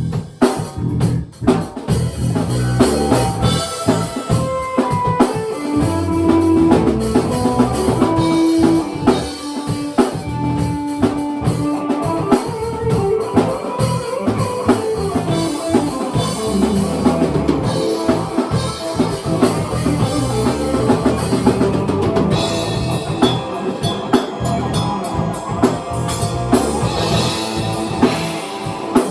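Small band jamming live in a rock groove: a drum kit keeping a steady beat under guitar, with a sustained melodic line in the middle of the passage. The playing drops out briefly about a second in, then carries on.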